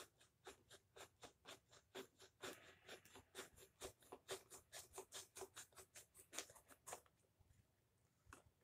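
Faint knife blade slicing through cardboard box packaging in quick short strokes: a rapid scratchy clicking, about four strokes a second, that stops about seven seconds in.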